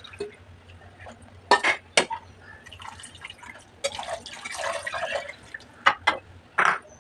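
A ladle stirring curry in a clay pot: several sharp knocks of the ladle against the pot, and a stretch of wet, sloshing stirring in the middle.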